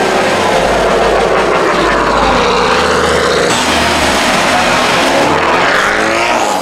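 Subaru Impreza time-attack race car's flat-four boxer engine running at low revs, its pitch wavering, then rising as the revs climb near the end as the car moves off.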